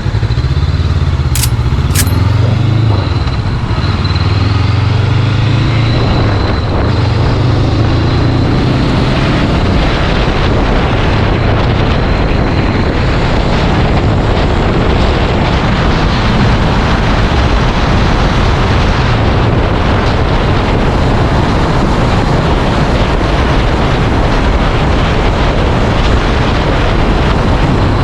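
Honda CBR500R parallel-twin engine pulling away, its pitch rising and falling with throttle and gear changes for the first several seconds, with two sharp clicks early on. As speed builds, steady wind noise on the microphone covers it.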